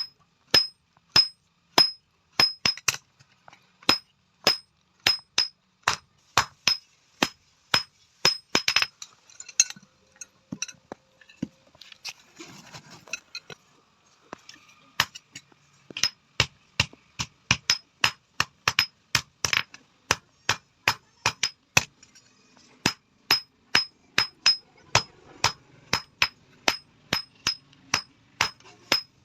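Hand hammer beating a sheet-iron tawa, a steady run of blows at about two a second, each with a high metallic ring. The hammering stops for several seconds near the middle, with only faint scraping and shuffling, then resumes at the same pace.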